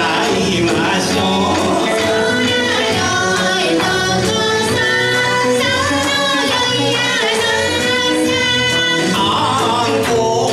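Kawachi ondo: a male singer chanting the ballad into a microphone in long held notes that bend and waver in pitch, over a steady percussive beat of the accompaniment.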